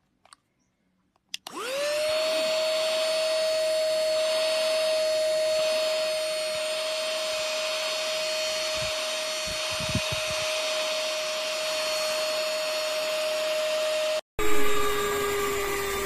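Cordless handheld mini vacuum cleaner switching on about a second and a half in, its motor spinning up to a steady high whine with a rush of air. It runs evenly, stops briefly near the end, then runs again at a lower pitch.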